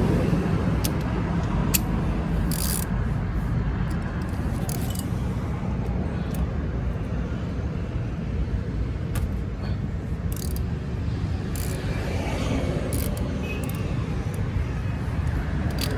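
Steady low rumble of road traffic, with scattered, irregular sharp metallic clicks from a 17 mm wrench working loose the scooter's oil drain bolt.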